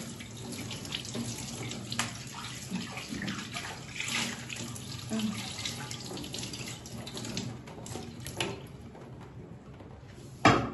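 Tap water running onto a black karahi as it is scrubbed by hand in a stainless steel sink, with small clinks and scrapes. The water stops about nine seconds in, and a single sharp knock follows near the end.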